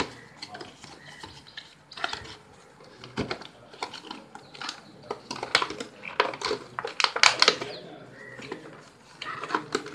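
Cardboard product box being handled: a quick run of taps, scrapes and rustles as the box, its end flap and its paper inner tray are pushed and slid about, busiest and loudest in the latter half.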